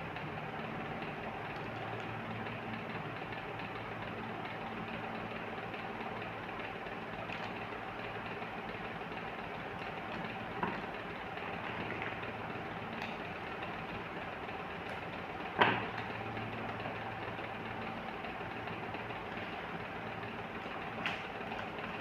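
Steady machine-like background hum with a faint steady tone, under a few small clicks of plastic beads being handled at a bead box; the loudest click comes a little past the middle.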